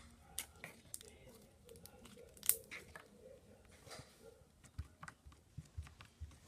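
Teal slime being handled and pulled, making scattered faint sticky clicks and crackles, with one sharper click about two and a half seconds in.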